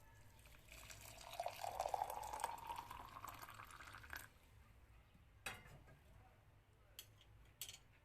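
Liquid being poured into a cup or jar for about three seconds, its pitch rising as the vessel fills, then a few light knocks.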